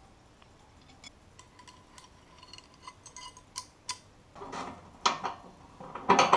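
Light metallic clicks and clinks from handling a tube-flaring tool, a copper tube and a fitting nut, with louder, irregular handling knocks over the last two seconds.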